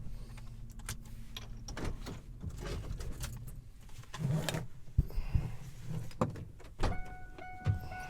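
Inside a Ford F-150 pickup: scattered clicks and knocks of the door and cab being handled over a low engine rumble. About a second before the end, the truck's warning chime starts beeping about twice a second, as it does when a door is opened.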